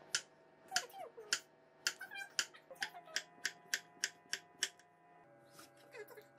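Chef's knife cutting zucchini on a wooden cutting board: a run of sharp knocks of the blade on the board, about three a second at their quickest, that stop a little after the middle.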